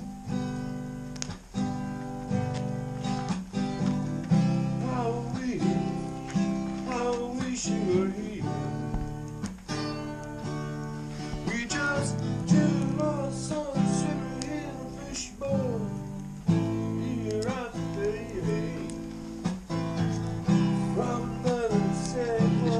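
Acoustic guitar music: strummed chords with a lead melody of bent, sliding notes over them.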